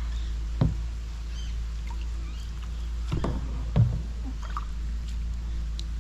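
Paddles dipping and knocking against the hull of a small paddled boat, a few sharp knocks with the loudest a little before four seconds in, over a steady low rumble.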